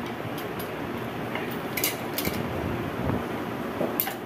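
Aluminium pressure cooker lid being seated and its handle swung shut, giving a few light metal clicks, the last near the end, over a steady low hiss.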